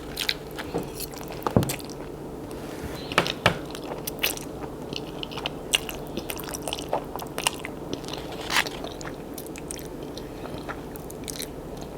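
A person chewing and eating fast food close to the microphone, with scattered small wet mouth clicks and crunches. A faint steady hum runs underneath.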